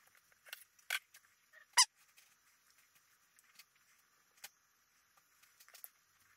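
A few light clicks and taps from a knife and hands working duck breast on a plastic cutting board, the sharpest about two seconds in.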